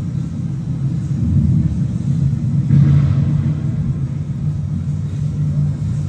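Low, steady rumble of city traffic, with a vehicle passing about three seconds in.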